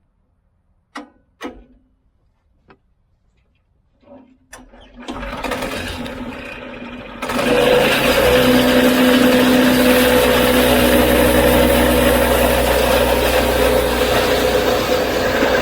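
A few knocks, then an engine starts about five seconds in, runs up, and from about seven seconds in runs steadily at a higher speed.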